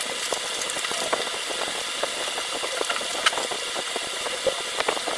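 A steady whirring hiss from a small electric motor-driven blower, with frequent light clicks and crackles from the battery pack's insulating sheet being handled.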